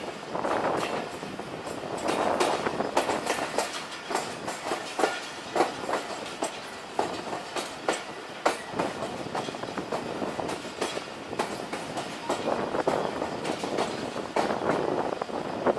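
Pakistan Railways passenger coach running at speed, its wheels clacking over rail joints at uneven intervals above a steady rolling rumble.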